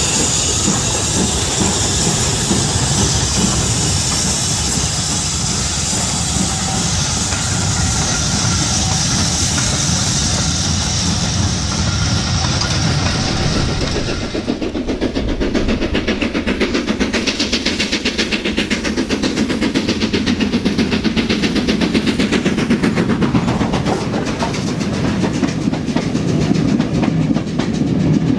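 Model goods train hauled by a steam locomotive. First comes a steady steam hiss; then, from about halfway, a fast even clickety-clack of the wagons running over the rail joints, over a low rumble.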